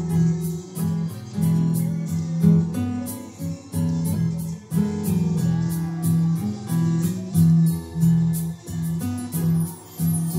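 Electronic arranger keyboard played with both hands in a guitar-like plucked voice, a melody over low bass notes, with a steady accompaniment beat of high ticks about four a second.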